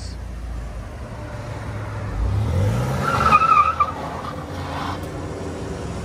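Supercharged 3.8-litre V6 of a 2003 Buick Regal, breathing through a Borla Pro XS muffler, accelerating away. The engine note climbs in pitch from about two seconds in and is loudest just past the middle, with a brief high squeal at the peak, then settles back to a steady drone as the car pulls off.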